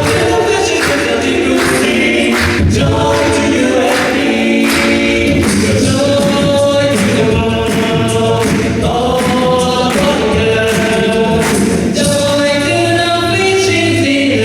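An a cappella vocal band singing in several-part harmony, with sustained chords over a low bass voice and a steady percussive beat on top.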